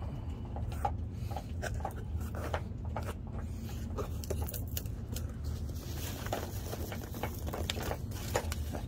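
Polystyrene foam packing peanuts and bubble wrap rustling and crackling in a cardboard box as a hand digs through them, with many irregular short crackles.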